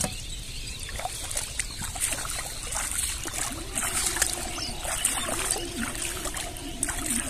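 Bare feet wading through shallow, muddy water, splashing with each stride, starting about a second in.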